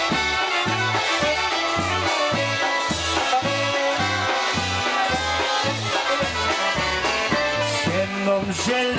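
Live polka band playing an instrumental passage: saxophone, concertina and accordion over drums and a steady bass beat of about two beats a second.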